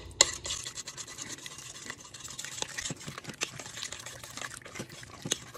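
A spoon stirring wet bow-tie pasta and a raw egg in a stainless steel Instant Pot inner pot, a continuous run of quick scraping strokes and small clicks against the metal, with one sharper click near the start.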